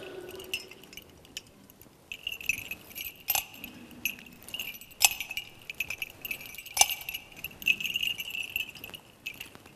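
Metal thurible swung on its chains to incense the Gospel book, the chains and fittings jingling and clinking. The jingling starts about two seconds in, with three sharper clinks about a second and a half to two seconds apart, one for each swing.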